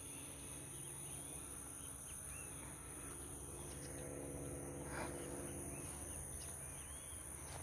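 Steady high-pitched insect drone with short bird chirps scattered over it, and a faint low hum underneath.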